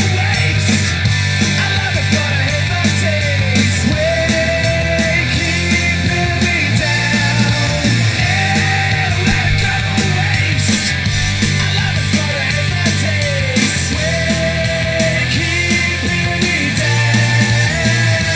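Rock music played through Creative T50 computer speakers: an instrumental stretch with no singing, held lead notes that bend in pitch over a steady bass and drums.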